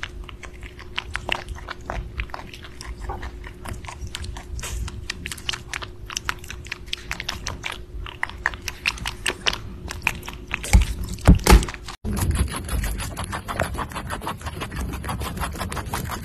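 Rabbit chewing and biting into juicy cherry tomatoes: quick, wet, crunchy bites in an uneven rhythm, with a few loud crunches shortly before a sudden change. About three-quarters of the way through, it switches to denser, more even nibbling as rabbits chew daisies and green leaves.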